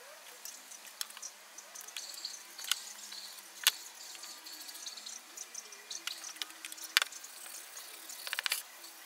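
A rag dipped in a plastic tub of dark stain and rubbed onto plywood: soft wet dabbing and scratchy wiping, with scattered clicks and taps from handling the tub. The sharpest taps come about a third of the way in and again past the middle, and there is a quick rattle of clicks near the end.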